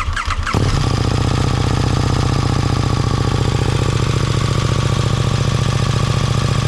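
KTM 1290 Super Duke R's V-twin being cold-started through a freshly fitted Austin Racing V3 250 slip-on silencer: the starter cranks briefly, the engine catches about half a second in, and it settles into a steady idle.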